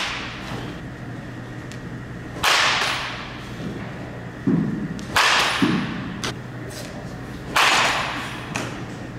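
Baseball bat hitting pitched balls three times, about two and a half seconds apart. Each sharp crack rings out and dies away in the large indoor hall. Softer low thuds come in between.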